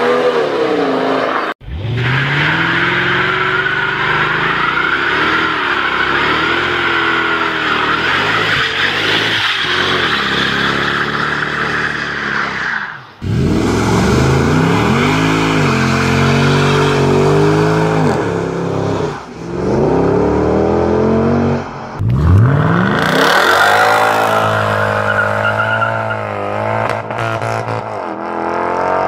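Mercedes-Benz AMG sedans (W211 E-Class and W221 S-Class) revving and accelerating hard during burnouts, the engine note rising and falling with hissing tyre squeal over it. Several separate clips follow one another, the sound cutting off abruptly and restarting three times.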